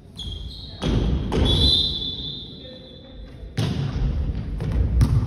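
Volleyball being struck during a rally in a large hall: four loud thuds, about a second in, at a second and a half, past three and a half seconds and near the end. A high, steady whistle tone sounds from the start and fades out after about three seconds.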